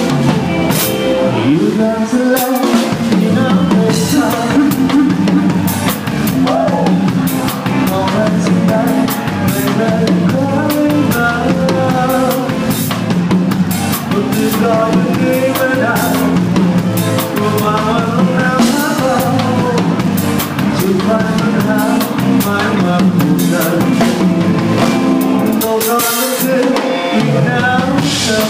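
A band playing live with the drum kit loud and close: kick drum, snare and cymbals driving the beat under the other instruments.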